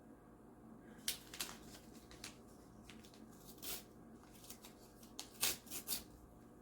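Scattered rustles and crisp clicks of things being handled at close range, with sharper clicks about a second in and a cluster of the loudest around five and a half seconds in.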